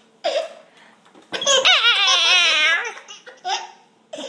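Baby laughing: a short laugh, then a long, high, wavering giggle of about a second and a half, then a couple of short laughs.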